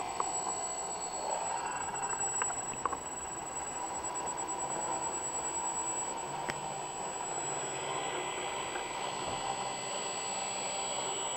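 A homemade CNC engraver built on furniture drawer slides, running: its spindle motor and stepper motors give a steady mechanical whine. One tone steps up in pitch about a second in, and there are a few faint ticks.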